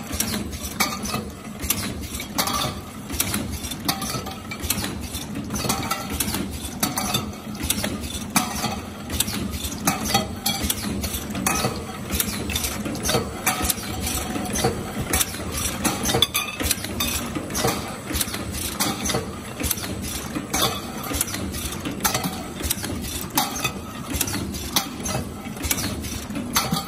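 Automatic can seaming machine running: a steady mechanical hum under rapid, irregular clicks and clinks as cans are carried along the conveyor and through the seaming head.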